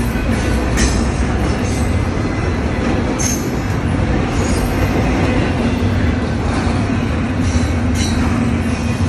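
Double-stack intermodal freight train's container-laden well cars rolling past close by: a steady heavy rumble of steel wheels on rail, with brief sharper high sounds from the wheels about three seconds in and again near the end.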